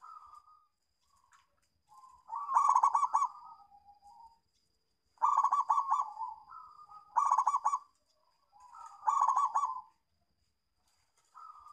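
Zebra dove (perkutut) cooing: four loud, rolling, trilled coos about two seconds apart, with softer single coos between them.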